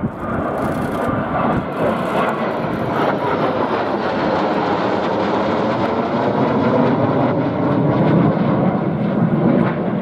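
Jet noise from a three-ship formation of Saab J32B Lansen, SK-35C Draken and SK-37 Viggen flying over on a run and break, a loud steady rush that builds gradually louder over the seconds.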